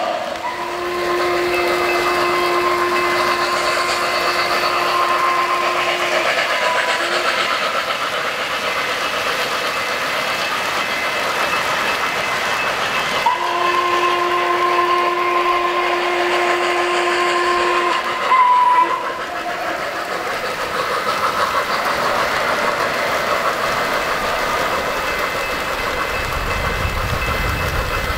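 A model locomotive's sound system sounding two long, steady whistle-horn blasts of about five seconds each, the second ending with a short, louder toot. Beneath them, the steady running noise of the O-scale train on the track.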